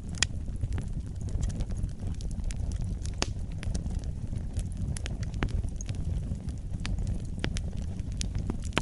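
Wood fire burning in a fireplace: a steady low rumble of the flames with irregular sharp crackles and pops, a louder pop right at the start and another about three seconds in.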